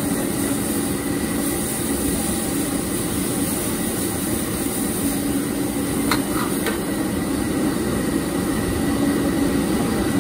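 Gas wok burner running steadily under a stir-fry, food sizzling in a steel wok, with the metal ladle scraping and knocking against the wok; two sharp clinks of the ladle come about six seconds in.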